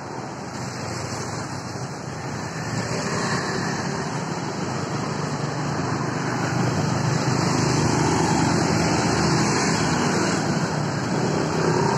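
Street traffic noise: motorcycle and car engines running close by, growing steadily louder toward the end as motorbikes ride just ahead.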